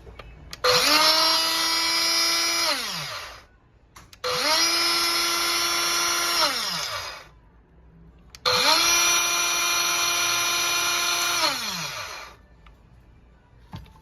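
Makita CC301DZ 10.8 V cordless cutter running with no load, switched on three times. Each run is a steady high whine of a couple of seconds that starts sharply, then drops in pitch and fades as the motor and blade coast down after release.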